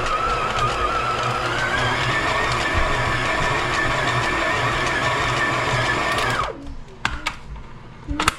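Stand mixer's motor running while a dough hook kneads bread dough: a steady whine over a low hum that climbs in pitch about two seconds in, then cuts off suddenly near the end. A few sharp knocks follow after it stops.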